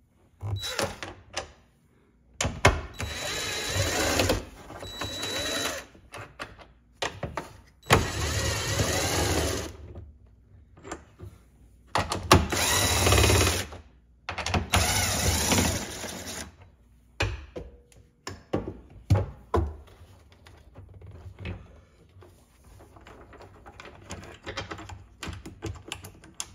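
Hands working at the black plastic brace over a Sea-Doo personal watercraft's engine bay: several one-to-two-second bursts of scraping and rustling, mixed with sharp plastic clicks and knocks, then quieter scattered clicks near the end.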